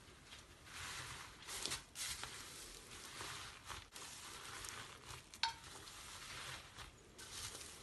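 Foam beads being pressed and kneaded into fluffy slime by hand: a fine crackling rustle in uneven spurts, beginning about a second in, with one sharp tick about five and a half seconds in.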